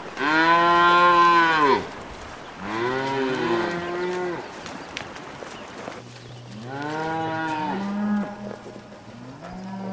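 Cattle mooing: several long, drawn-out moos one after another, the first and loudest lasting about a second and a half, with quieter ones following in the middle and near the end.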